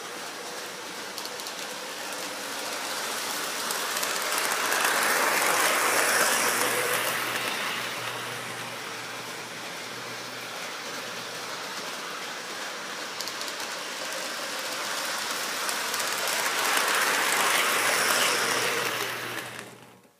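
O-gauge model train running around a loop on plastic-roadbed track: a steady rolling rumble of wheels and motor with a low hum under it, swelling loud twice as the train passes close. The sound cuts off suddenly near the end.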